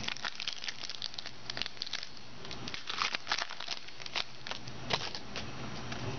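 Shiny foil wrapper of a trading card pack crinkling and tearing as it is pulled open by hand: a run of irregular crackles, busiest about halfway through and again near five seconds in.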